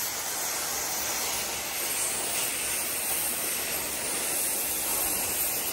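Oxy-fuel cutting torch hissing steadily as its flame and oxygen jet cut through steel plate.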